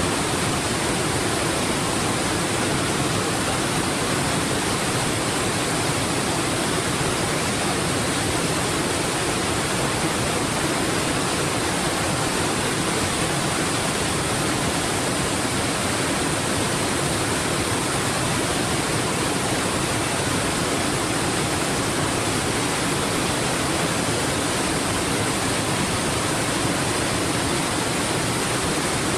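A waterfall's falling water making a steady, unbroken rushing noise.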